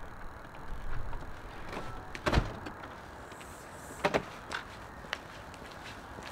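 A house door opening and shutting, with two loud knocks about two and four seconds in, followed by footsteps on a concrete walkway.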